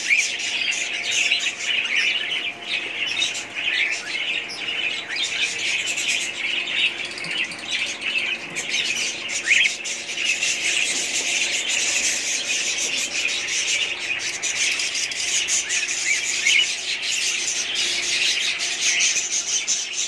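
A colony of cockatiels chirping and chattering continuously, many calls overlapping into a steady din.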